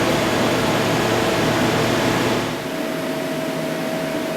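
Steady machine hum from a CNC lathe under power, with a steady high whine; a deeper rumble cuts out about two and a half seconds in while the whine keeps going.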